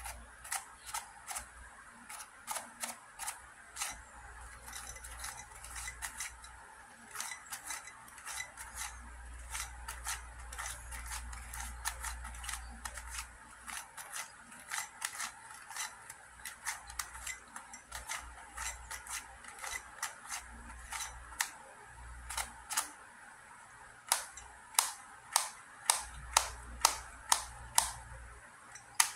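QiYi 2x2x3 cuboid puzzle's plastic layers being turned by hand: a stream of sharp clicks and clacks as the pieces snap into place. Near the end come louder, evenly spaced clacks, about two a second.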